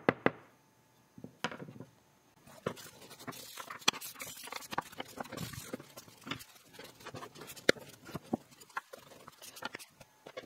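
A small wooden coffee-scoop clip being wiped and rubbed with a cloth rag: scratchy rustling with many small clicks and knocks of the wood in the hand. A couple of sharp taps come right at the start.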